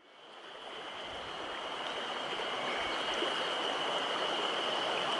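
Mountain stream water rushing steadily, fading in over the first second.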